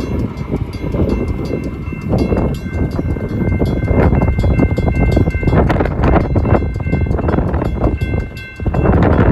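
Railroad crossing bells ringing: a mechanical bell's rapid, even strikes and an electronic bell's steady tone, over a loud low rumble.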